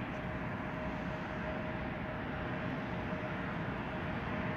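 Jet airliner engines running: a steady whine over a broad rumble, slowly growing louder.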